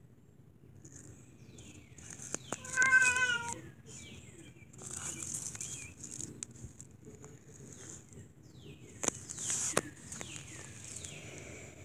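A cat meows once, a short wavering call about three seconds in. High falling chirps and a couple of sharp clicks follow later.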